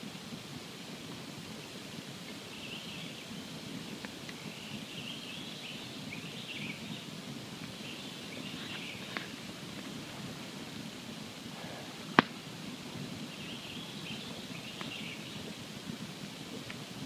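Wood campfire burning with a steady low rush and scattered small crackles, and one sharp, loud pop about twelve seconds in.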